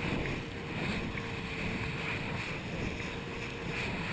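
Steady wind buffeting the microphone and water rushing past an inflatable banana boat towed at speed through a boat's foaming wake, with a faint steady hum underneath.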